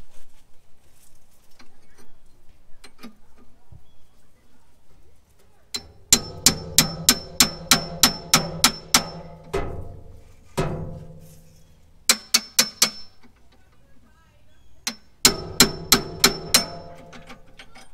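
Steel hammer striking a 1959 Chevrolet front spindle to knock the tie rod end loose from its tapered seat. Sharp ringing metal blows come in several quick volleys of about four a second, with one lone strike between them.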